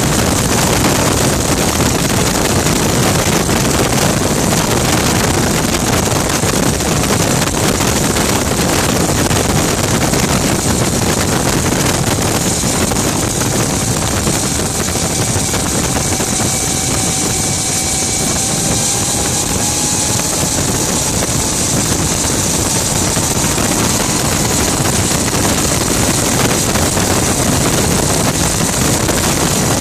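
Rover Jet 1 kerosene-burning gas turbine car running at speed on track, a steady loud rush with a strong high-pitched hiss over wind noise in the open cockpit; a faint tone rises slowly in pitch around the middle.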